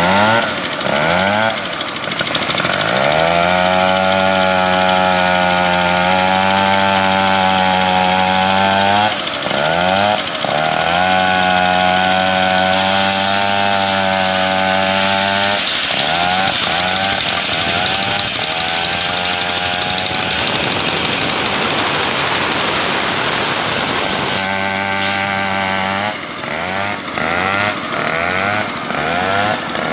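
Two-stroke chainsaw engine blipping its throttle, then held at high revs for several seconds, twice. Midway through, the steady note gives way to a long rougher, noisier stretch, then it steadies briefly before more short blips near the end.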